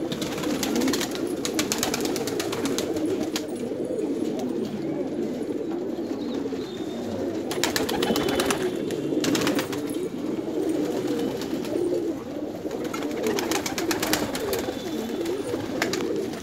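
A flock of domestic pigeons cooing continuously, many birds overlapping into a steady low murmur. Three bursts of rapid clattering stand out: near the start, midway and toward the end.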